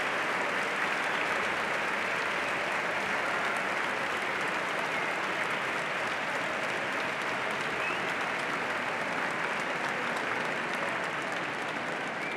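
Large crowd applauding steadily, the applause slowly easing off toward the end.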